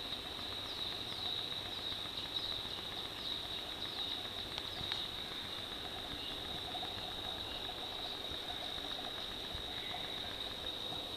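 Small birds chirping in the background, rapid short falling chirps mostly in the first half, over a steady high-pitched whine.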